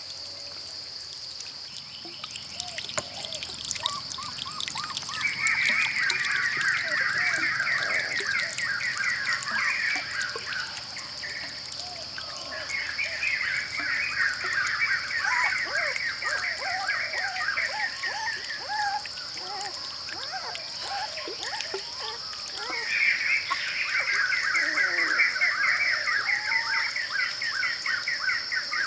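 Birds singing in three long bouts of rapid trilled notes, with scattered shorter chirps, over a steady high-pitched insect drone.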